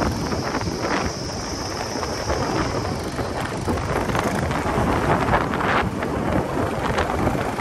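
Wind buffeting the microphone of a camera on a moving motorcycle: a loud, dense rushing rumble that swells in gusts, with the ride's engine and road noise buried in it.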